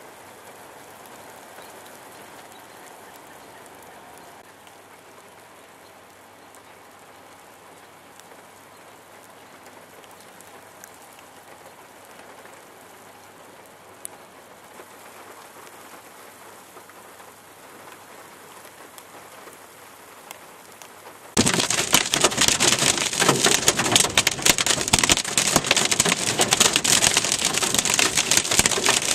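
A faint, steady hiss, then about three-quarters of the way in a sudden cut to loud, heavy rain beating densely on a car's roof and windshield.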